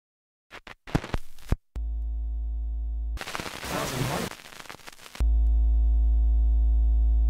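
Motorboat engine droning steadily at an unchanging pitch, cut in and out abruptly twice, with a burst of water splashing between the two stretches. A few sharp clicks sound near the start.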